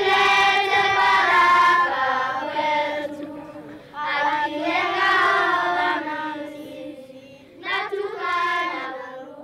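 Children's choir singing, in three held phrases with short breaks between them.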